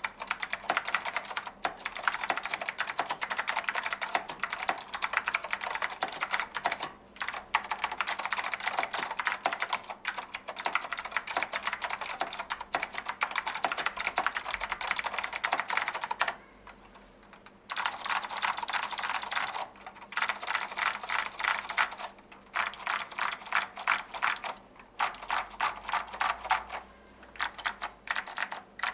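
Fast continuous typing on a Datacomp DFK-777NA mechanical keyboard with stock Alps SKCM Blue clicky switches and doubleshot ABS keycaps: a dense run of sharp clicks, broken by a few brief pauses, the longest about a second long in the middle.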